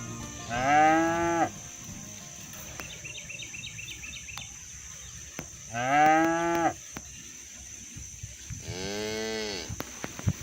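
Cattle mooing: two loud moos about five seconds apart, each rising and then falling in pitch, and a fainter moo near the end. A steady high insect drone runs underneath.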